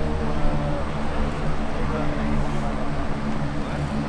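Twin turboprop engines of a US Coast Guard HC-144 Ocean Sentry (CASA CN-235) running as it taxis: a steady propeller drone made of several low held tones over a broad rush.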